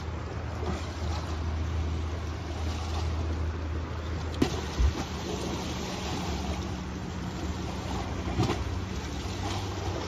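Wind and sea surf against a breakwater, with a low steady hum through the first half and a sharp click and a thump about halfway through.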